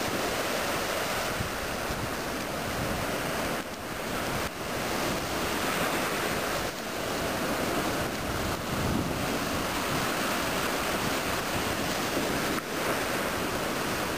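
Ocean surf washing steadily onto a beach, with wind buffeting the microphone.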